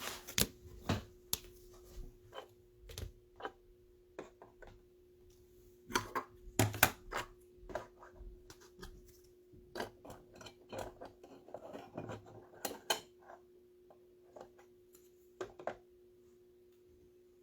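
Trading cards being handled and sleeved: scattered light clicks, taps and rustles of card stock and plastic, irregular.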